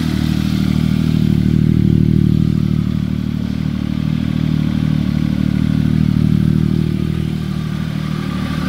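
A 2007 Triumph Tiger 1050's three-cylinder engine idling steadily.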